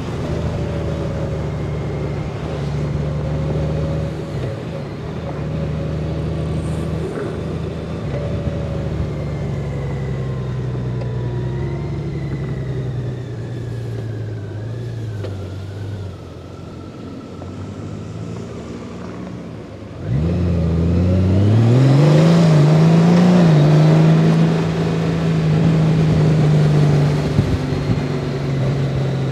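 2021 Honda Gold Wing DCT's flat-six engine running under the rider: steady at first, then falling in pitch as the bike slows, and quieter for a few seconds. About two-thirds of the way through it gets suddenly louder and rises in pitch as the bike accelerates, with a brief dip as the dual-clutch gearbox shifts up. It then settles into a steady cruise.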